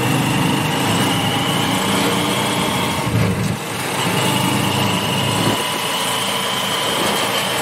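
Small motorcycle engine of a tricycle (motorcycle with sidecar) running steadily under way, heard from inside the sidecar with road noise. The engine note eases off briefly about three seconds in, then picks up again.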